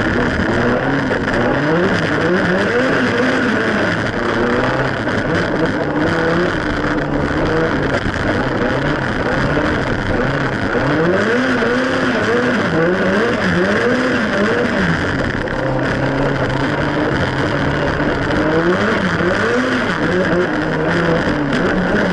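Ford Sierra Cosworth's turbocharged Cosworth YB four-cylinder engine heard from inside the cabin under hard driving, its pitch climbing and falling again and again as it revs up through the gears and drops back at each shift and lift.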